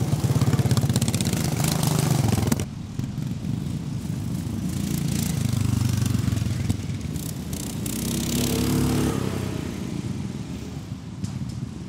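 Racing ride-on lawn mower engines revving as the mowers pull away, loud and close. About two and a half seconds in the sound drops suddenly to engines farther off, which swell louder again for a moment about two-thirds of the way through.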